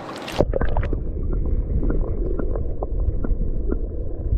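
The microphone goes under river water about half a second in. After that the sound is a muffled low rumble of moving water with short bubbling blips.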